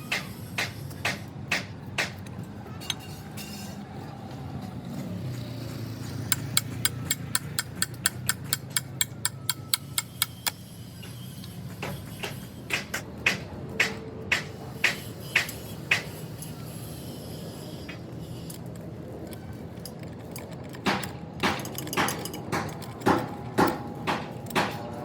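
Metal hand tools at work on a truck steering box: runs of sharp metallic taps and knocks, a few a second, with pauses between the runs, over a steady low hum.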